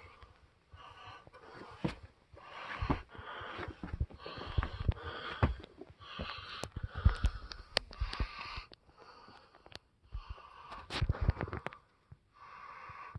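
Heavy, rapid breathing close to the microphone, about one breath a second, with frequent knocks and thumps of a handheld phone and footsteps.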